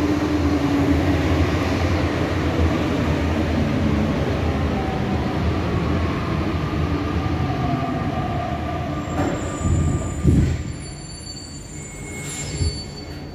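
Metro train braking into a station, heard from inside the car by the doors: a steady rumble of wheels and motors with a faint falling whine. A knock comes about ten seconds in, and the train then quietens as it comes to a stop.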